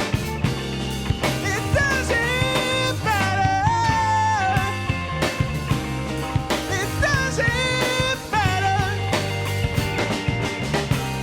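Live rock band playing an instrumental passage: a lead melody with bent, sliding notes over bass and a busy drum kit.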